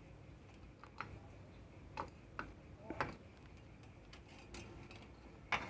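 Faint, scattered light clicks and taps from hand work with a soldering iron on a circuit board, roughly one a second, with a sharper knock near the end.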